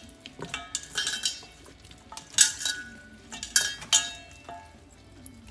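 Stainless steel mixing bowl clinking and rattling as hands knead raw chicken pieces in it: a string of irregular, sharp metallic clinks that ring briefly.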